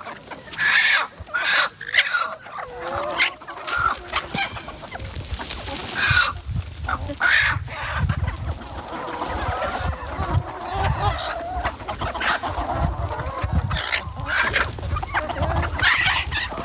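A flock of free-range chickens clucking and calling over one another, with a low rumble underneath.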